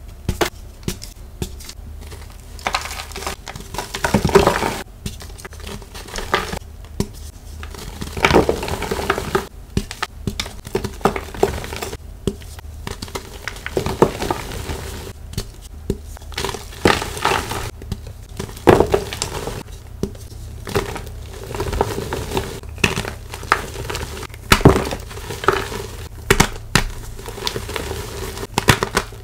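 Blocks of gym chalk crunching and crumbling as hands press and squeeze them, a dry crackling with louder sharp cracks every few seconds.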